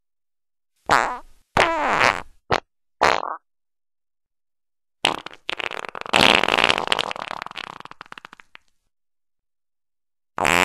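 A series of farts. About a second in come four short ones in quick succession, the first two falling in pitch. Then a long sputtering fart of rapid pops runs for about three and a half seconds and trails off, and another begins near the end.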